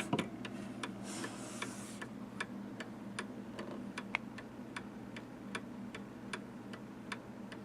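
Restored antique Gilbert mantle clock ticking steadily, its pendulum escapement clicking about two and a half times a second in an even beat, the clock running well after repair.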